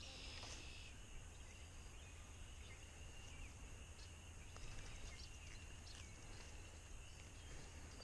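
Faint outdoor ambience: a steady high-pitched animal calling, with a few short chirps and a low background rumble.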